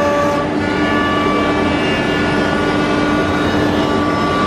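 Holztek heavy-duty CNC nesting router running: a loud, steady machine noise with several high whining tones over it. About half a second in, the whine shifts to a different set of pitches.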